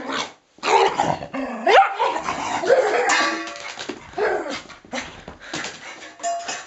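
Parson Russell terrier barking and yipping in a frantic bout of play, a quick run of sharp calls with short breaks between them.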